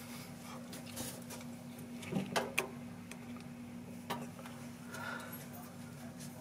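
Handling noise from a hand-held phone camera being moved about: scattered clicks and small knocks, loudest as a quick cluster about two seconds in, over a steady low hum.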